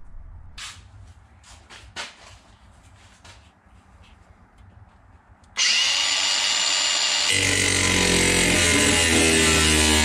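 A few faint handling clicks, then about five and a half seconds in a cordless angle grinder starts suddenly and spins with a high whine. From about seven seconds it bites into the sheet steel of a truck cab's back wall and runs steadily under load, cutting.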